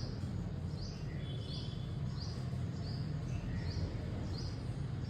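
A small bird chirping over and over, short high chirps coming about once or twice a second, over a steady low hum.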